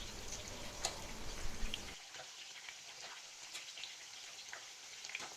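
Marinated chicken pieces deep-frying in hot oil in a kadai: a soft sizzle with scattered small pops and crackles.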